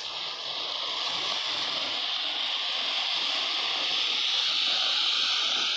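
A lit Diwali firework burning with a steady hiss that swells slightly and then dies away just after the end.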